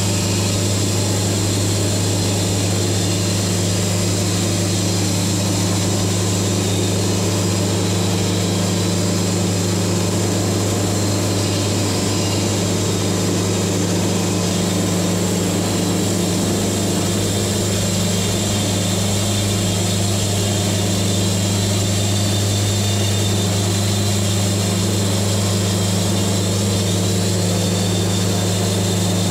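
Wood-Mizer band sawmill running steadily under load as its blade cuts through a log: a constant low engine drone with sawing noise over it.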